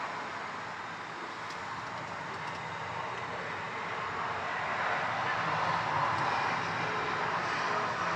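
Engine of a 1945 GMC DUKW amphibious truck, its GMC 270 straight-six, running steadily, heard from the driver's compartment as a low hum under an even rush of noise.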